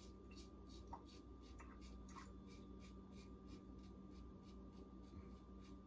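Muhle R41 open-comb safety razor cutting through about a week and a half of stubble on the chin and jaw. It makes a faint, quick, even run of short scratchy strokes, about three or four a second.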